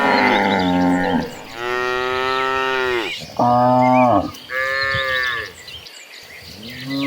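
A herd of cattle mooing: about five long moos one after another at different pitches, the loudest about three seconds in. A short lull near the end comes before the next moo begins.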